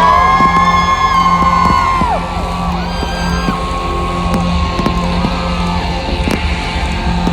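Loud music played over a stadium sound system, with long held, sliding tones above a steady low beat.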